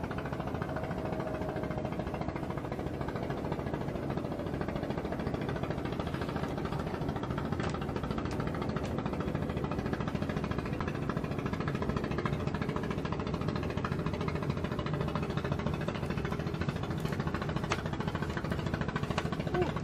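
An engine running steadily with an even hum and rumble, and a few faint clicks over it.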